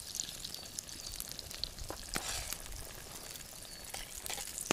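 Wild garlic sizzling in melted butter in a pot over a campfire: a steady frying hiss with scattered pops and crackles.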